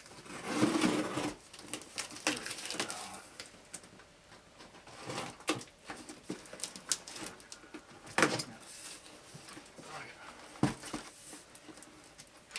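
Cardboard box being opened by hand: irregular rustling, crinkling and scraping of flaps and packing paper, with scattered small clicks and knocks. The loudest rustle comes about a second in, with another sharp burst about eight seconds in.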